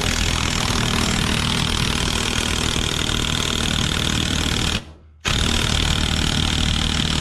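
Old brushed Porter-Cable 1/2-inch impact wrench hammering a bolt that has run out of threads in a vise, driving it as tight as it will go. It runs in one long burst, stops for a moment almost five seconds in, then hammers again.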